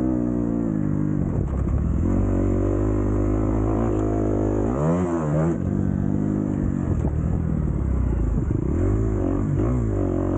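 Kawasaki KX250F motocross bike's single-cylinder four-stroke engine running under throttle, its pitch rising and falling as the rider works the throttle, with a quick rev up and back down about five seconds in.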